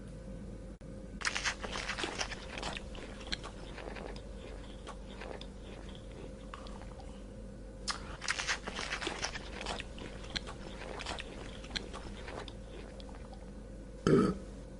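An animal crunching and chewing food, in two spells of rapid crunches about two seconds long, with scattered single crunches between. A short loud thump near the end.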